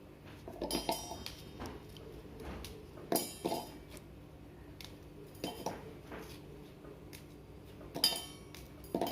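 Oreo biscuits being dropped into a mixer-grinder jar, clinking and knocking against it in about five short clusters.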